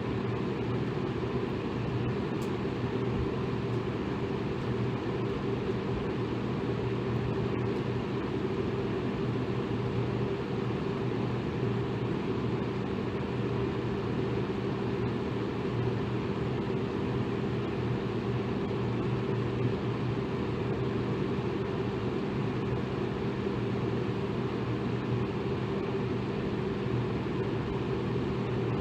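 Electric fan running steadily: an even whooshing hum, strongest in the low range, with a faint steady motor drone.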